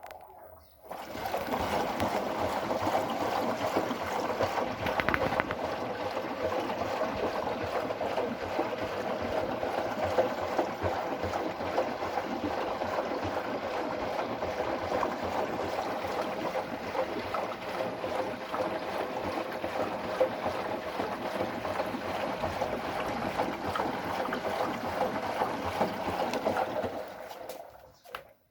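Washing machine running a wash cycle, water sloshing steadily in the turning drum. The sound starts about a second in and cuts off abruptly near the end.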